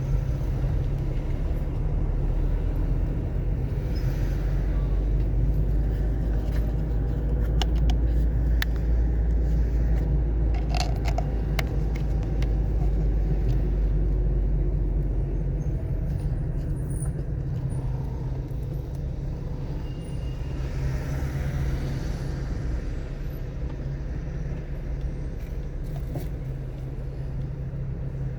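Car driving along, a steady low rumble of engine and road noise, with a few sharp ticks around ten seconds in.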